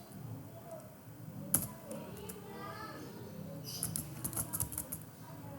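Computer keyboard being typed on: a single sharp keystroke about a second and a half in, then a quick run of keystrokes about two seconds later, with faint low speech underneath.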